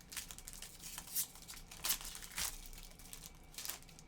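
Foil trading-card pack wrapper being torn open and crinkled by hand, in several rustling bursts.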